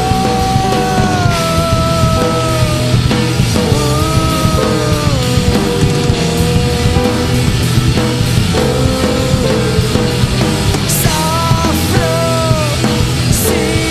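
Loud rock music with a dense band texture and a melody line that bends and glides in pitch.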